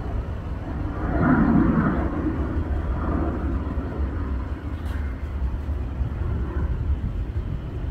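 Twin turbofan engines of a Boeing C-40 Clipper (a military Boeing 737) giving a steady low rumble as it flies away, swelling briefly about a second in.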